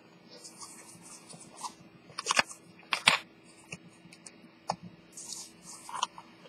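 Handling noise from a steel-bracelet wristwatch and its cushioned presentation box: scattered small clicks and brief rustles as the watch and cushion are set in the box and adjusted by hand.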